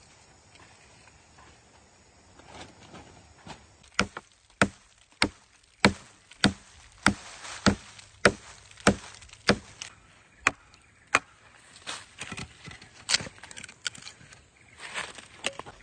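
A tool striking wood about a dozen times in a steady rhythm, a little under two blows a second, starting about four seconds in; lighter, uneven knocks follow.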